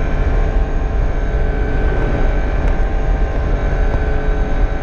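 Yamaha Niken GT's 847 cc three-cylinder engine running at a steady cruise, under heavy wind rush on the helmet microphone.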